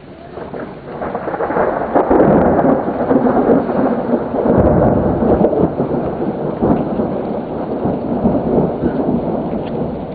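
Rolling thunder swelling up over the first two seconds and rumbling on, with deeper surges, through steady rain.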